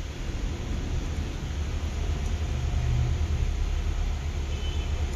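Steady low rumble with an even hiss behind it.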